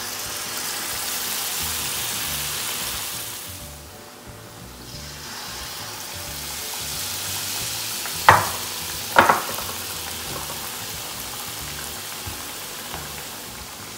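Batter-coated chillies deep-frying in hot oil in a steel kadai: a steady sizzle that fades briefly about four seconds in, then picks up again. Two sharp clicks about a second apart come a little past the middle.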